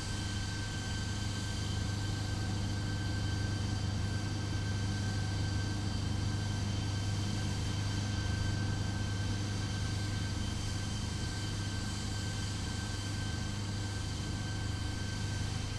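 Steady engine drone: a strong low hum with a constant high whine over it, unchanging throughout.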